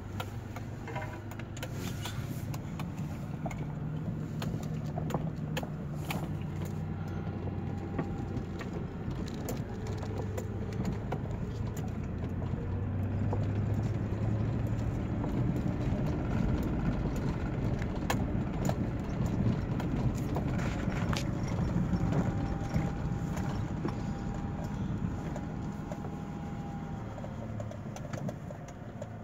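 Vehicle engine running and tyres rolling slowly over a dirt track, heard from inside the cab, with scattered small clicks and rattles.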